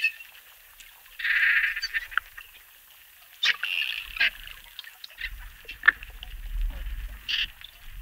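Dolphins calling underwater: sharp clicks and short buzzing squawks, with a low rumble starting about five seconds in.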